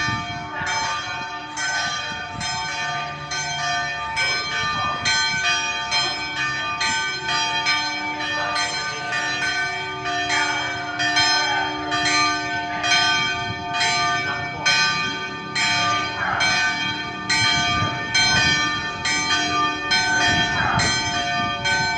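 Church bells rung continuously and rapidly, about two strikes a second, with the tones of several bells ringing on over one another. This is a festive peal for Easter Sunday.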